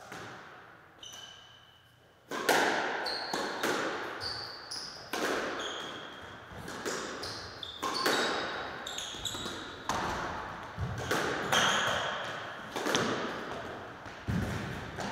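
Squash rally: the ball smacked by rackets and banging off the court walls and floor, each hit echoing, starting with a serve about two seconds in and going on at a quick irregular pace. Short high squeaks of shoes on the wooden floor come between the hits.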